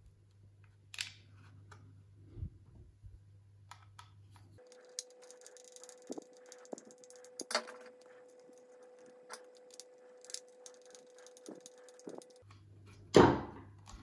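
Hands handling a small plastic smart-switch housing and its cable: scattered light clicks and taps, with one louder knock about a second before the end.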